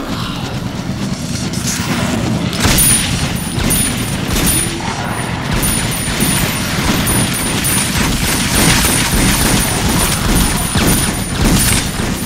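Film sound of a semi-automatic pistol fired in rapid succession at attacking dogs. Sharp shots and booms come thick and fast from about three seconds in and run on, with a thin high tone flickering above them, until the pistol is emptied with its slide locked back.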